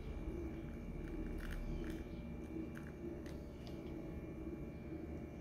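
Hot tea poured from a pan into a ceramic mug: a faint trickle and splash, with a few small clicks scattered through.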